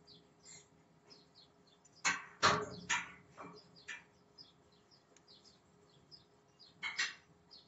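Small birds chirping over and over in short, high, falling notes, with a few louder knocks breaking in, the loudest about two to two and a half seconds in and another near the end.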